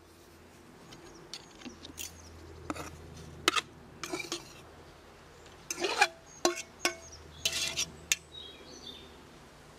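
Blackened metal cooking pot clinking and knocking as boiled leaves are tipped and shaken out of it onto a plastic plate. A string of irregular knocks with brief metallic rings, the loudest about three and a half and six seconds in.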